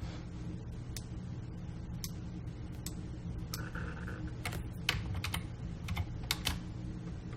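Computer keyboard and mouse clicks during editing work: a few scattered clicks, then a quick cluster of clicks in the second half, over a steady low hum.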